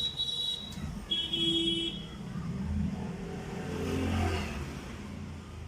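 A motor vehicle passing by, swelling to a peak about four seconds in and fading, after two brief high-pitched tones in the first two seconds.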